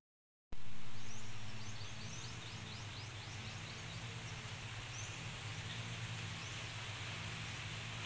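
A small bird chirping a quick run of short, high, falling notes between about one and four seconds in, with a few single chirps later, over steady outdoor background noise and a low hum. The sound starts after a half-second gap of silence and is loudest just after it, settling over the next second or so.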